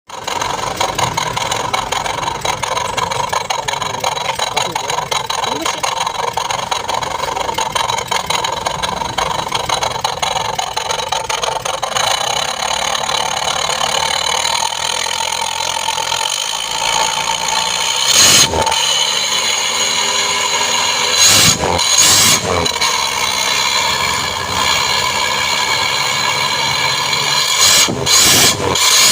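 Motorcycle engine running through an aftermarket SUOS bolt-on exhaust, idling steadily with the deep "ngorok" (snoring) growl the exhaust is sold for. In the second half it is given about five short throttle blips.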